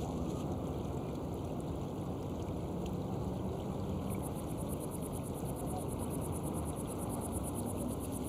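Steady rush of a shallow stream running over stones. About halfway through, a fast, even, high-pitched chirring starts up over it.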